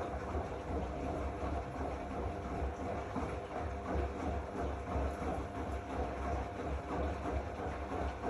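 Zanussi AquaCycle 500 FA 623 front-loading washing machine running: a motor hum over an uneven, pulsing rumble, starting just after a sharp click.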